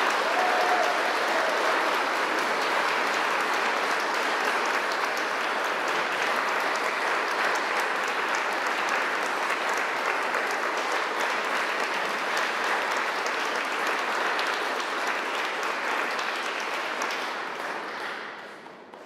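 Church congregation applauding steadily, the clapping dying away near the end.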